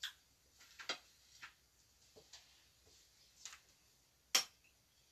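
Scattered light clicks and taps of a spoon against a plate during a meal, the sharpest clink about four seconds in.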